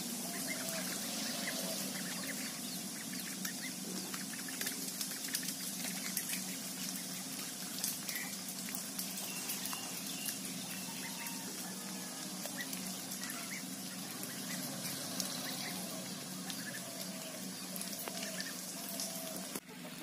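Domestic ducks and chickens foraging around a muddy pond: wet dabbling and splashing in the mud and water, with occasional clucks and short calls, over a steady high background hiss.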